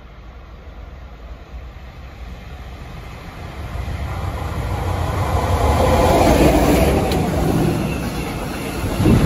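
Freight train hauled by an electric locomotive approaching and passing through the station, its running noise growing steadily louder. It swells as the locomotive draws level and rises sharply again near the end as the wagons pass close by.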